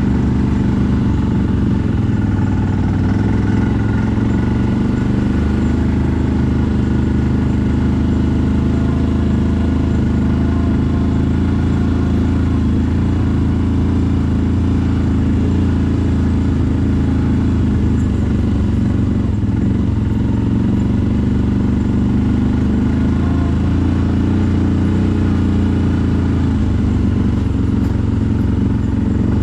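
CFMoto 1000 ATV's V-twin engine running steadily under way, its pitch rising and dipping a little.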